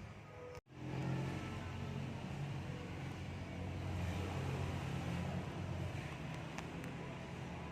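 A motor vehicle engine running steadily with a low rumble, cut off briefly by an edit about half a second in.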